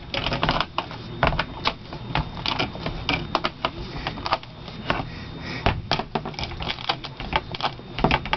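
Irregular clicks and light taps, several a second, as a rubber gasket is worked by hand onto the rim of a Dexter dryer door.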